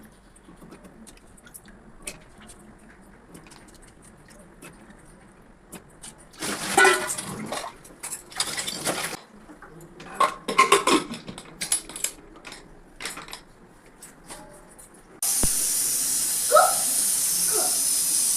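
Pressure cooker boiling potatoes: a few stretches of kitchen clatter, then about fifteen seconds in the weight valve lets go with a sudden loud, steady hiss of escaping steam. This is the cooker's whistle, the sign that it has come up to pressure.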